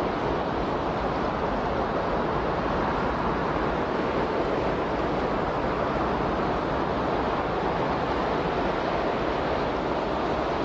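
Steady rushing noise, even and unbroken, with no swell or fade and no distinct tones: the masking noise track of a subliminal recording.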